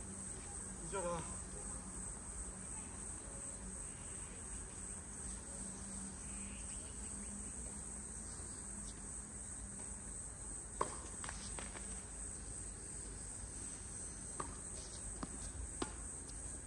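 A steady, high-pitched insect chorus, like crickets, runs throughout. A few sharp knocks come in the second half, the loudest about 11 seconds in, typical of tennis balls being struck on the court.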